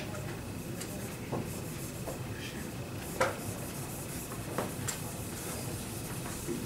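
Faint rubbing on a whiteboard, with a few short squeaks and light taps, the sharpest about three seconds in, over a faint steady high whine.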